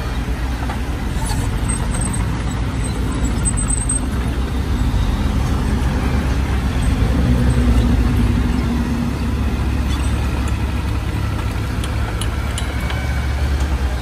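Heavy diesel earthmoving machinery working with a steady low engine rumble that builds to a peak about halfway through and then eases off a little.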